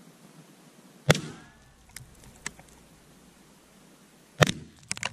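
Two slug shots from a Bora Barak 12-gauge shotgun at a steel target 150 m away, heard from the target end: each a single sharp crack with a short tail, about three seconds apart, followed by a few lighter clicks.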